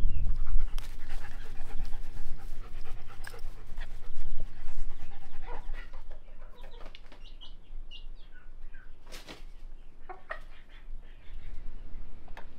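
Chicks peeping and a hen clucking while they peck at a shallow dish of feed, with a few sharp pecking clicks.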